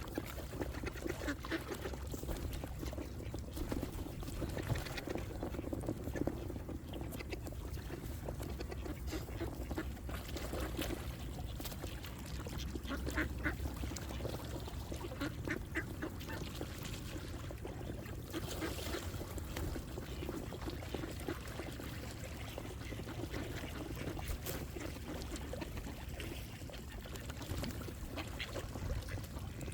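A flock of ducks quacking continuously, many calls overlapping.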